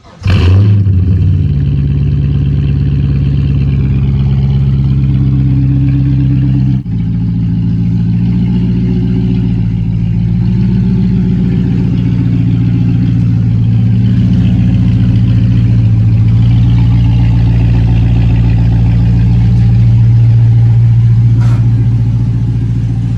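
Holden Commodore SV8's V8 engine running under way. It comes in suddenly and climbs in revs at the start, then holds a steady drone at constant revs, with an abrupt change in pitch about seven seconds in.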